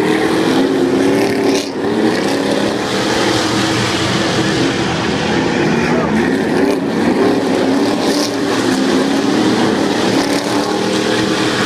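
A pack of Stadium Super Trucks racing past, their V8 engines revving, the pitch rising and falling.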